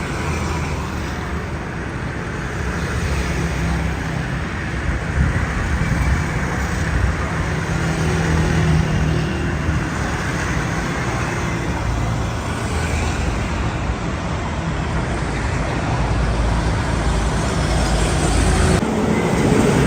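Road traffic noise with motor vehicle engines running steadily.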